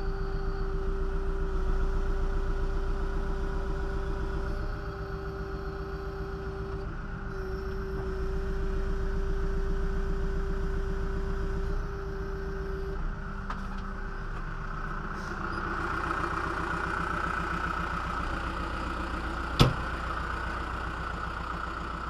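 John Deere 310SG backhoe loader's diesel engine running with the loader hydraulics working, a steady whine held for the first half while the note shifts in steps as the control lever is moved. It then settles to a steady run, with one sharp knock near the end.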